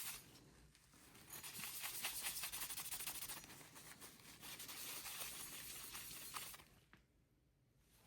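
Faint rubbing of a paper towel damp with rubbing alcohol wiping old thermal compound off a CPU, in two spells of scratchy strokes that stop about a second before the end.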